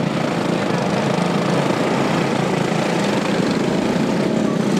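Small go-kart engines of a pack of karts racing on the track, running together as a steady, even engine noise.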